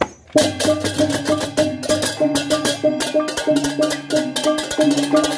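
Balinese processional gamelan for a barong ngelawang: a kendang drum and hand-held small kettle gongs played in a fast, dense rhythm of strikes over ringing gong tones. The music drops out briefly at the very start, then comes back in full.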